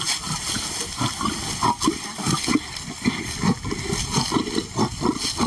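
Lions growling over a meat carcass: a rapid series of short, low growls, about three a second. This is the male guarding the food from a lioness.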